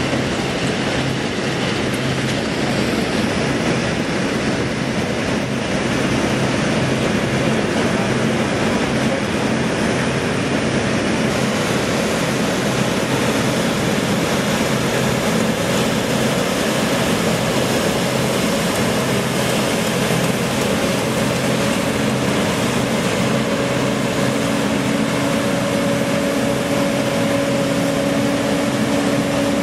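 Combine harvesters running in a soybean field, a steady mechanical noise. About twenty seconds in, a steady engine hum comes in and holds.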